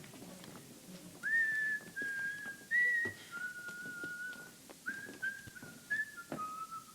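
A person whistling a short, slow tune of about eight held notes, starting about a second in and ending on a lower note, with a few faint taps underneath.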